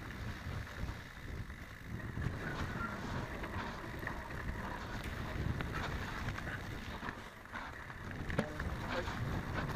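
Wind rushing over the microphone of a camera mounted on a mountain bike, with the rumble of knobby tyres rolling over a dirt trail and scattered clicks and knocks of the bike rattling over bumps.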